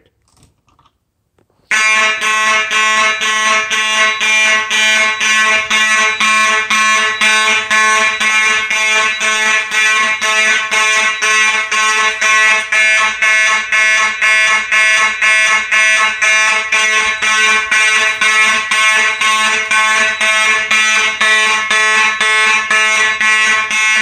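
Faraday 6120 electromechanical fire alarm horn sounding in march-time code: loud, even blasts about two a second, starting about two seconds in. It is the general alarm set off by the smoke detector.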